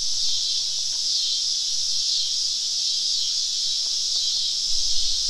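Steady, high-pitched chorus of insects in summer woodland.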